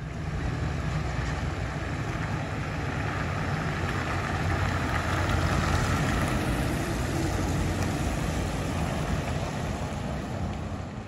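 A van towing a motorcycle trailer, its engine and tyres running steadily as it drives off.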